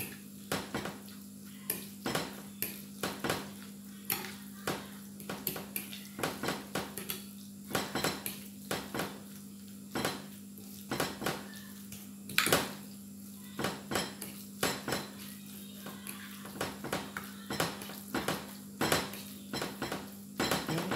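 Spoon stirring seasoned minced pork in a glass dish, clinking against the dish irregularly about once or twice a second, over a steady low hum.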